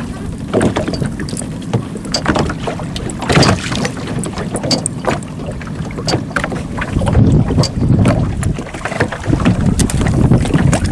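Water splashing and dripping as a fishing longline is pulled hand over hand out of the sea over a small boat's side, with short sharp splashes and clicks throughout. Wind rumbles on the microphone, gusting louder in the second half.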